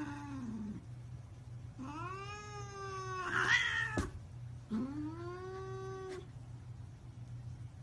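A cat meowing: a short falling meow at the start, then two long, drawn-out meows that rise and then hold, with a sharp click between them.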